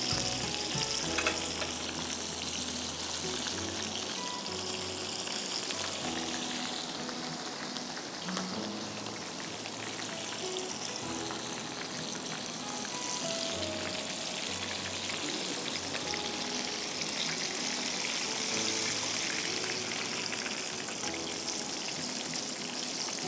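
Flour-coated chicken fillet frying in hot oil in a pan, a steady sizzle.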